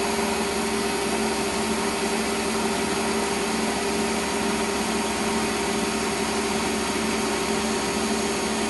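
Metal lathe running at speed while turning an offset workpiece in a 4-jaw chuck, the tool cutting and throwing off swarf: a steady hum with a steady whine over the cutting noise. The offset weight leaves the chuck out of balance, so the machine shakes as it runs.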